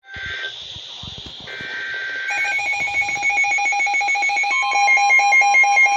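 Emergency Alert System tones over weather radio. It opens with short hissing data bursts, the digital alert header. A steady electronic alert tone starts a little over two seconds in, and a second tone joins it at about four and a half seconds, signalling that a new warning is about to be read.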